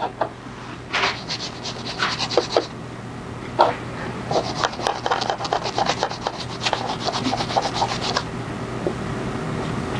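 A wool dauber rubbing black penetrating leather dye onto a smooth leather handbag panel: quick, repeated scratchy strokes from about a second in until about eight seconds, then quieter.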